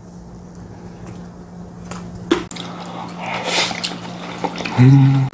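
Close-up wet, squishy eating sounds of a mouthful of rice being chewed, with a sharp chopstick click about two seconds in. Near the end comes a short hummed "mm" of enjoyment, the loudest sound.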